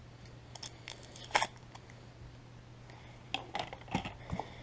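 Handling of packaging and logo nameplates in a box: light clicks and rustles, one sharper click about a second and a half in and a quick run of clicks near the end, over a faint steady hum.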